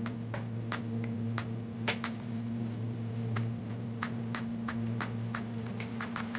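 Irregular light clicks and taps, about two to three a second, some ringing briefly like small metal parts, over a steady low hum.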